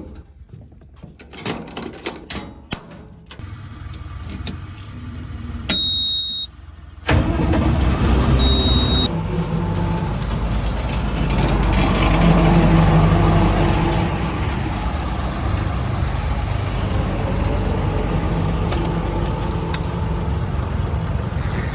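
A farm vehicle's diesel engine is started: a few knocks and clicks come first, and a loud high steady beep sounds twice. About seven seconds in, the engine catches and runs steadily, picking up speed briefly in the middle.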